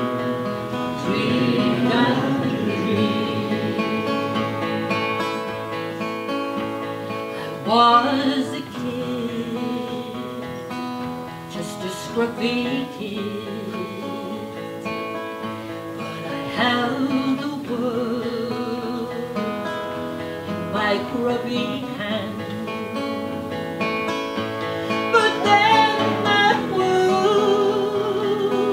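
A woman singing a folk song live, accompanying herself on a strummed acoustic guitar, her held notes wavering with vibrato.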